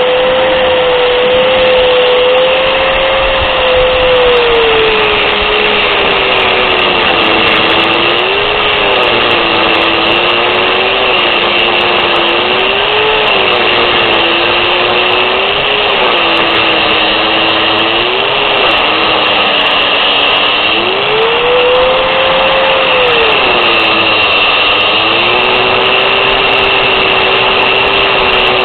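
Harbor Freight Warrior 4.5-inch angle grinder running loud. Its motor note drops whenever the disc is pressed into the work and climbs back as the pressure eases, again and again.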